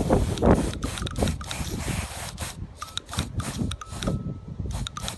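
A BMW VANOS camshaft solenoid clicking irregularly as 9-volt battery leads are touched to its terminals, switching its valve open and shut while it is being cleaned.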